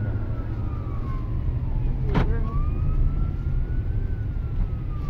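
Emergency vehicle siren wailing, sliding slowly down, then up and down again in pitch, heard from inside a moving car's cabin over a steady low road and engine rumble. A single sharp crack sounds about two seconds in.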